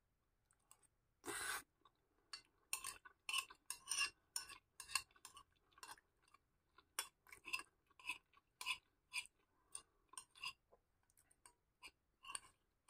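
A metal spoon scraping and clinking against a glass bowl, mixed with chewing, in a string of short irregular clicks and scrapes. There is one longer, louder rasp about a second in.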